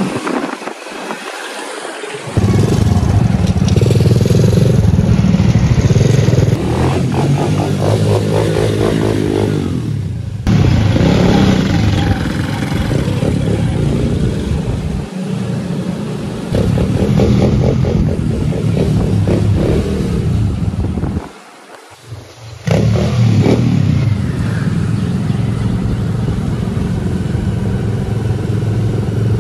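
125cc dirt bike engine running loud on the move, its note rising and falling with the throttle. The sound is weaker for the first two seconds and drops out briefly about three quarters of the way in.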